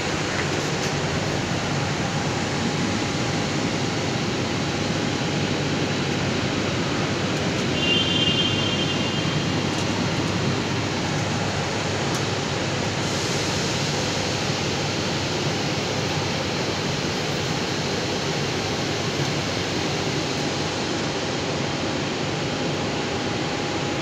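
Steady rushing background noise of a large factory hall, the kind of broad hiss that ventilation and plant machinery make. A short, thin high squeal sounds about eight seconds in.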